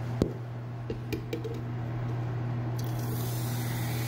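A few light clicks and knocks, then from about three seconds in a steady fizzing hiss as vinegar and baking soda react and foam, over a steady low hum.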